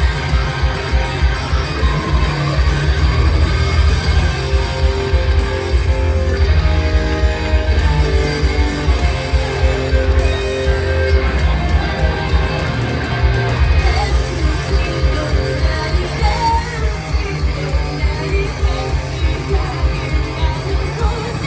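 Loud rock music with guitar and a steady driving beat, with some singing.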